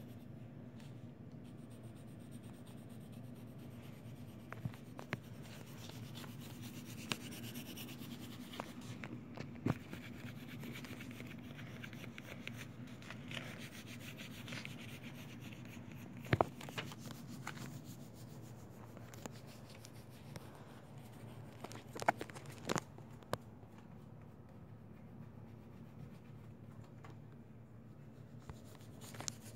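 Pencil shading on paper: soft, repeated scratching and rubbing of graphite strokes, broken by a few sharp taps, over a steady low hum.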